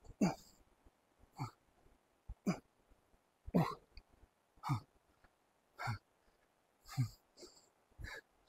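A man breathing out hard with a short voiced grunt on each squat rep, eight times at about one a second, each exhalation falling in pitch.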